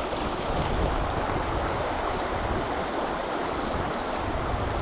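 Fast river water rushing steadily over a shallow riffle, with an uneven low rumble of wind on the microphone.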